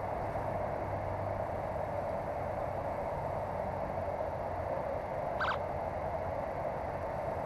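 Steady outdoor background hum at a constant level, with one short chirp about five and a half seconds in.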